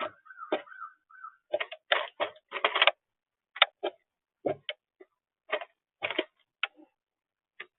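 Irregular sharp taps and clicks, a few each second, some in short rattling clusters, close to the microphone; a faint steady tone for the first second and a half.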